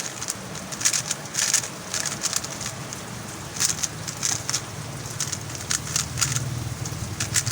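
Quick irregular plastic clicking of a MoYu Huameng YS3M MagLev 3x3 speedcube being turned fast during a timed solve. A low steady engine-like hum comes in about halfway through.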